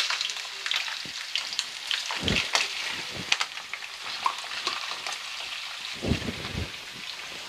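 Raw prawns sizzling and crackling in hot oil in a frying pan as more are tipped in from a bowl. The sizzle is loudest at the start, and a few dull knocks come about two seconds in and again near the end.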